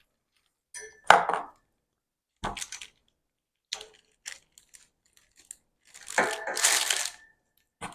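Metal shelving parts being handled: a few separate sharp knocks and clinks, the loudest about a second in, then about a second of clattering with crinkling near the end.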